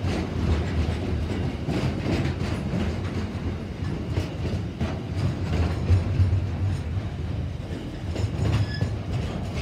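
Container-laden freight wagons rolling past: a steady low rumble from the wheels on the rails, with irregular clicking and clattering as the wheels pass over rail joints.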